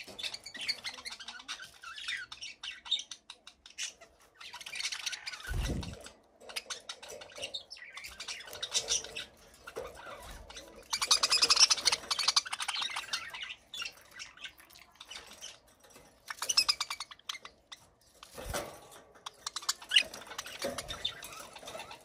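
Budgerigars chirping and chattering in repeated bursts of rapid, buzzy warble, busiest about eleven seconds in. Two short low thumps break in, about six seconds in and again near the end.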